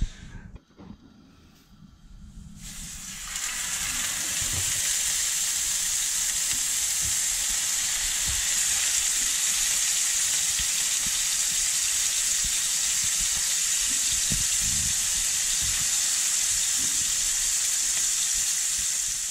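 Monkfish fillets sizzling as they sear in a hot frying pan. The sizzle swells in a couple of seconds in and then holds steady.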